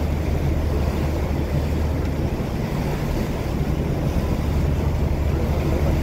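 A boat's engine running steadily under way, a low even drone, over a broad rush of wind and water.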